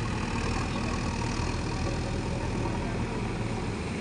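JCB 3DX backhoe loader's four-cylinder diesel engine running steadily as the machine moves a full loader bucket of soil.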